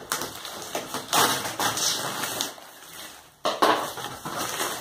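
Cardboard parcel being cut open with scissors and its packing paper and wrapping rustled and crumpled. The crackling dips briefly, then starts again loudly about three and a half seconds in.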